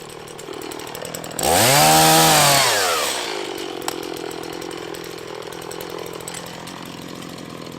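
Chainsaw idling, then revving up hard about a second and a half in and falling back to idle after a second or two.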